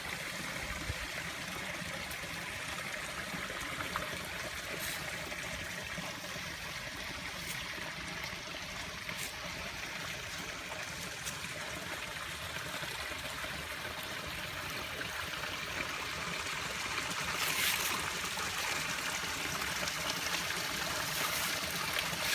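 Backyard garden waterfall splashing and trickling into a pond in a steady flow, the falling water foaming.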